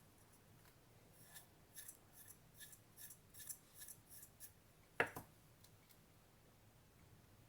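Faint, light scraping strokes, about three a second, of a utensil stirring a baking soda and contact lens solution mix in a small container, followed about five seconds in by one sharper knock.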